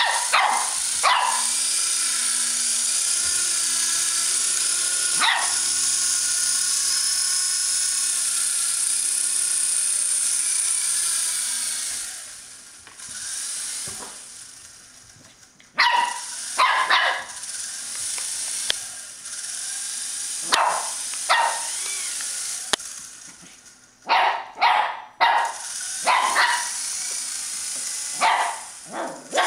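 Shih Tzu puppy yapping in short, high-pitched barks at a small electric RC toy helicopter, whose rotor motor gives a steady high whine. The whine drops away for a few seconds midway, then returns with more bursts of barking.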